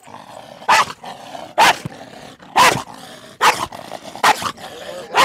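Kombai dog barking aggressively, about five sharp barks roughly a second apart, lunging and snarling at a hand held out toward it.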